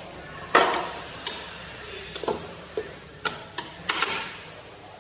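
A cooking utensil stirring and knocking against a stainless-steel pan of stir-fried greens: a string of about seven sharp, irregularly spaced clacks.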